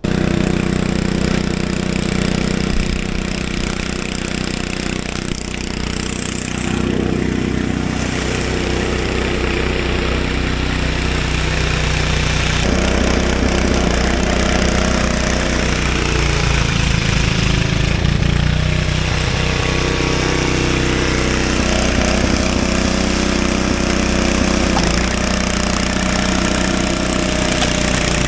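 Craftsman 5/24 snowblower's small single-cylinder engine running, its note shifting now and then as the load changes.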